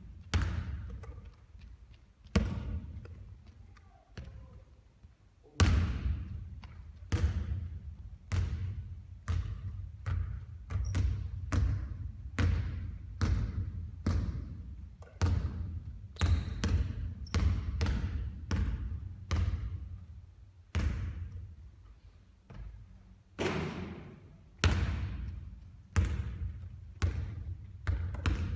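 Basketball bouncing repeatedly on a hard court, a sharp thud every second or so, each trailing off in a short ringing echo.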